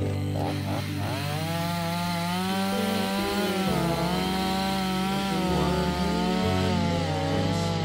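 Two-stroke chainsaw running under load as it saws through a Japanese cedar (sugi) log, the engine's pitch dipping and recovering repeatedly as the chain bites.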